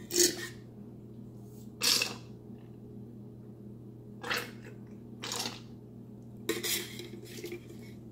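A utensil scraping in a stainless steel saucepan as oil is spread: several short scrapes, the loudest near the start and about two seconds in, over a steady low hum.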